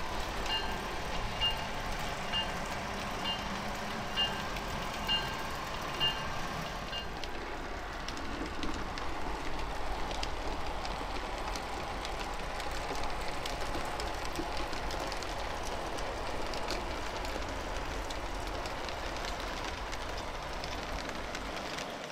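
HO-scale model trains running on a layout, a steady rumbling noise throughout. For the first seven seconds a sound-equipped model locomotive's bell rings about once a second.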